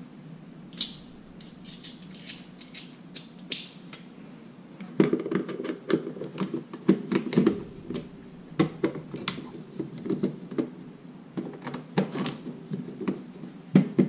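Small screws being turned out of a Kwikset keyless deadbolt's keypad unit with a precision screwdriver, by hand. Light clicks, scrapes and rattles of the driver and the plastic and metal parts, sparse at first and busier from about five seconds in.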